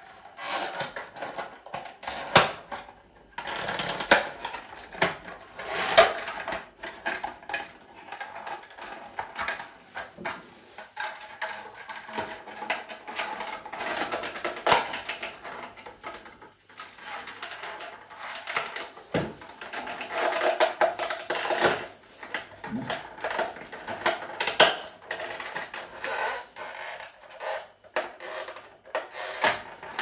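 Hand-handling of a refrigerator's plastic fan motor housing: irregular plastic clicks, knocks and scraping as the parts are worked on, with a few sharper knocks along the way.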